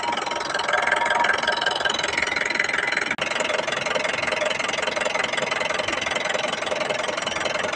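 Mahindra pickup's engine running at a steady idle with an even clatter, with a momentary break about three seconds in.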